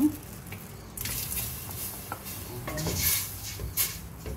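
Straw mushrooms tipped from a bowl into a steel stockpot of broth, followed by a wooden spoon stirring in the pot, with a few light knocks against the pot.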